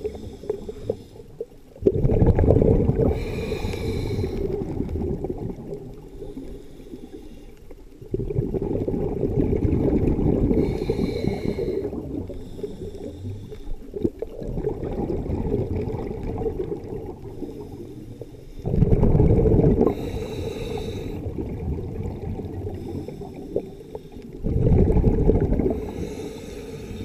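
Scuba regulator breathing underwater: several rumbling bursts of exhaled bubbles, a few seconds apart, with quieter breathing between them.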